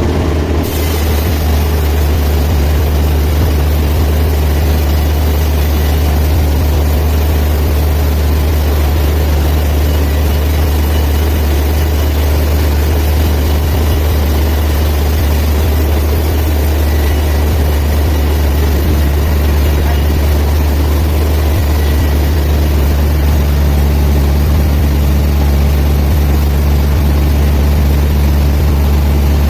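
Band sawmill machinery running steadily with an even low hum.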